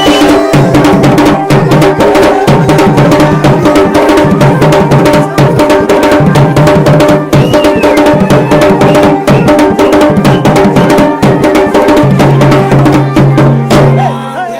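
Garhwali dhol and damau drums played together in a fast, dense rhythm over a steady held tone, with a repeating low drum pulse; the drumming thins out near the end.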